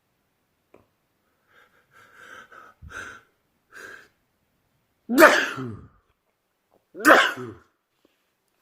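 A man sneezes loudly twice, about two seconds apart, after a few short catching breaths of build-up. The first sneeze is the louder. The sneezes are set off by sunlight on his face, a photic sneeze reflex.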